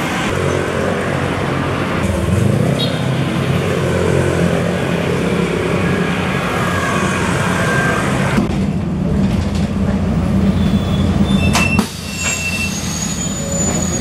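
City bus diesel engine running with street traffic; the engine note rises about two seconds in as the bus pulls up. Later the engine drone continues from inside the moving bus, with a few brief high squeals near the end.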